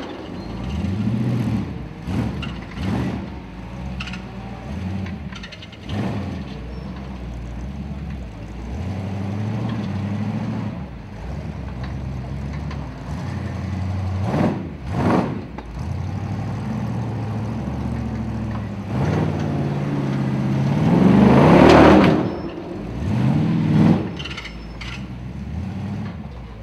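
Formula Offroad car's engine running and revving in repeated bursts as it climbs a steep dirt slope. A pair of sharp revs comes about halfway through, and the loudest revs come near the end.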